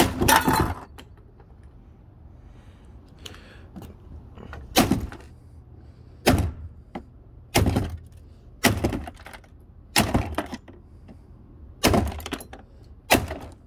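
An old coffee machine being smashed: about eight hard blows, one to two seconds apart, each a sharp crack as its casing breaks.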